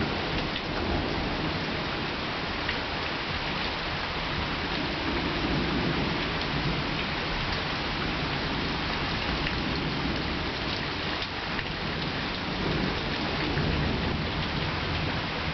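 Steady summer rain pattering down, with thunder rumbling low underneath, swelling up about a third of the way in and again near the end.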